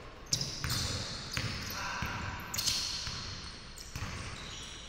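Basketball bouncing on a hardwood gym court during play: several scattered thuds.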